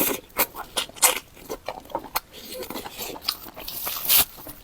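Close-miked eating sounds: wet chewing and lip smacking with many sharp clicks, and a louder wet burst near the end.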